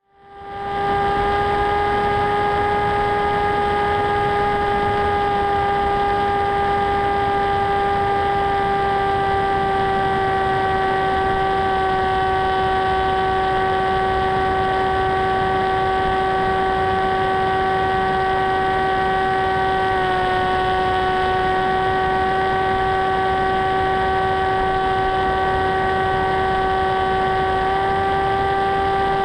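Sweepwings Juggernaut FPV wing's brushless pusher motor and propeller whining at a steady throttle, with a rush of airflow noise; the pitch sags slightly a couple of times.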